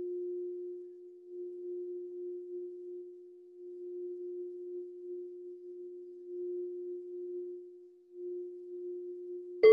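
Singing bowl sung by circling a mallet around its rim: one steady tone that swells and fades in slow waves. Just before the end a bowl is struck and rings out loudly at a higher, brighter pitch.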